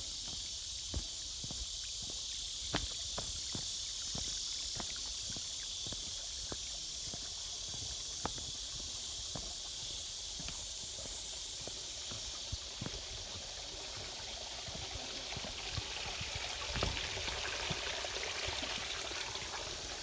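Steady high-pitched chorus of insects, with scattered footsteps scuffing and tapping on bare rock. A faint trickle of running water comes up about three quarters of the way in.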